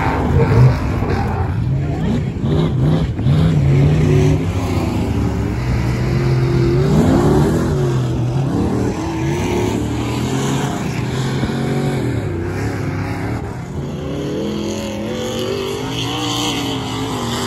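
Off-road race car engines running hard around a dirt track, several at once. Their pitch rises and falls again and again as the drivers accelerate and lift off through the corners and jumps.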